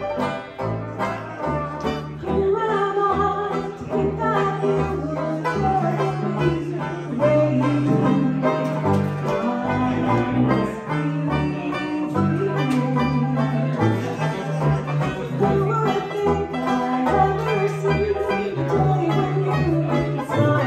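Live small hot-jazz band playing: a woman sings over a strummed banjo and a stepping bass line from a brass bass, with saxophone and trumpet in the band.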